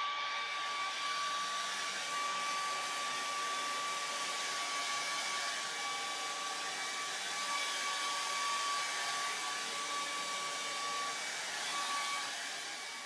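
Hand-held hair dryer blowing steadily: a rush of air with a thin, steady whine over it, beginning to die away right at the end.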